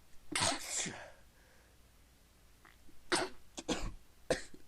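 A person stifling a run of sneezes: a muffled pair of sneezes about half a second in, then three or four quick, sharp stifled sneezes near the end.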